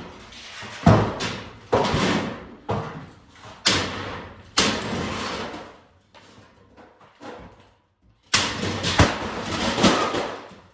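Demolition work: a run of hard knocks, clatters and scraping from material being broken loose, with about five hits in the first five seconds, a pause, then another dense spell of banging near the end.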